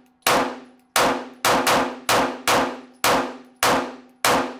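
FN 509 pistol fired rapidly: nine shots, about two a second with one quick pair, each crack ringing off in the range.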